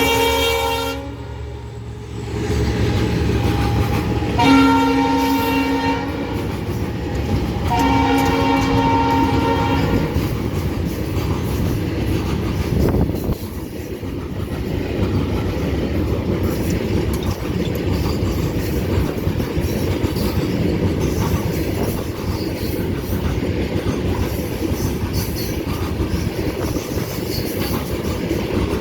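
WDG4 diesel locomotive's horn sounding: a blast that ends about a second in, then two more blasts of about a second and a half each, about four and eight seconds in. After that, the steady noise of the freight train running past.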